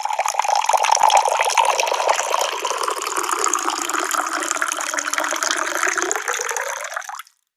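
Water pouring steadily into a glass, a continuous splashing stream that cuts off suddenly near the end.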